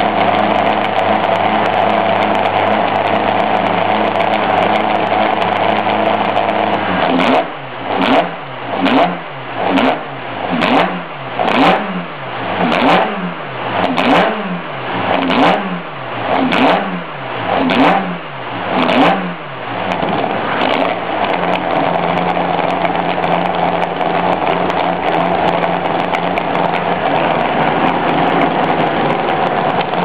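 Race-prepared Alfa Romeo 2.0-litre four-cylinder with individual throttle bodies and open intake trumpets, idling steadily. About seven seconds in it is blipped about a dozen times in quick succession, roughly once a second. Each blip opens with a sharp crack and the revs rise and fall away before it settles back to a steady idle.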